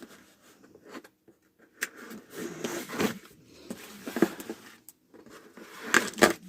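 Packaging rustling and tearing in irregular bursts as a sealed box is opened by hand, the loudest rips near the end.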